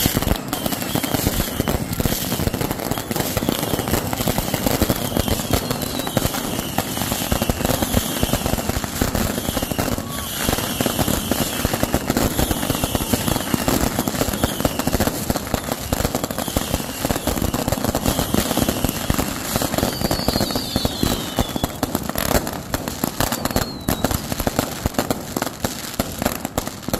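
Consumer fireworks grand finale: several ground fountains and aerial cakes going off at once, a dense, continuous barrage of crackling pops and bangs that never lets up.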